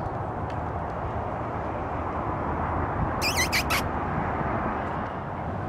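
Steady outdoor background noise, with a quick run of about four high, wavering squeaks a little past halfway through.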